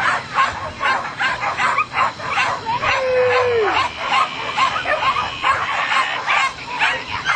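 Flyball dogs barking in a rapid, unbroken stream, about three or four barks a second, with a short falling whine about three seconds in.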